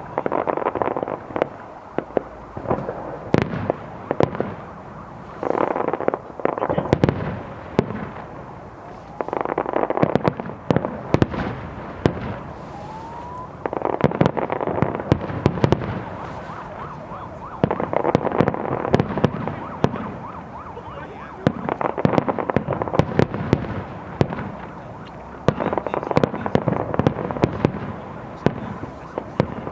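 Fireworks display: waves of bangs and dense crackling bursts every few seconds, with a short rising whistle about halfway through.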